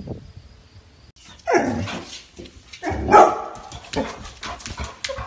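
Yellow Labrador retriever barking several times in loud, sharp barks with a falling pitch, starting about a second and a half in.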